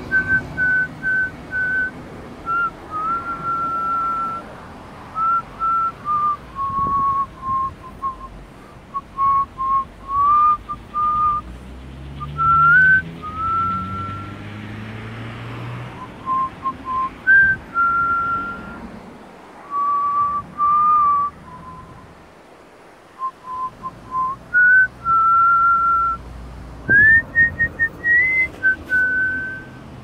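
A person whistling a slow, wandering tune: clear single notes, some held and some sliding up or down, in short phrases with brief pauses, rising higher near the end.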